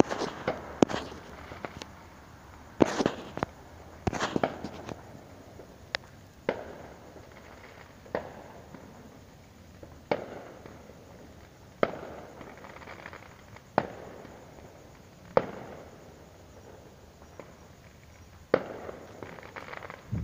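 Fireworks going off: a dozen or so sharp bangs at uneven intervals, mostly one to two seconds apart, each with a short echoing tail.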